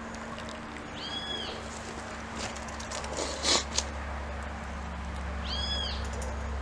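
A bird gives two short whistled calls that rise and fall in pitch, about four and a half seconds apart. Midway there is a brief, louder noisy burst and a click, over a steady low hum.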